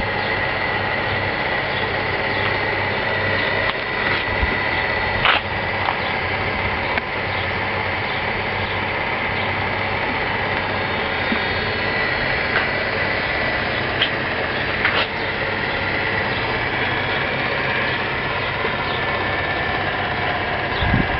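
Sioux 622N valve grinder running steadily on its worn, cracking belts: an even machine hum with a steady high whine and a few faint clicks, with its coolant pump switched on.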